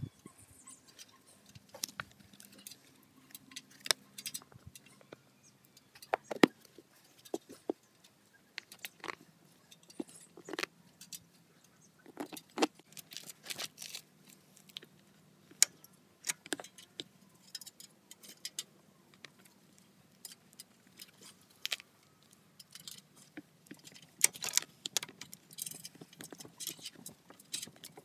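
Irregular light clicks and short jingling rattles of small hard objects being handled, with a faint steady low hum underneath.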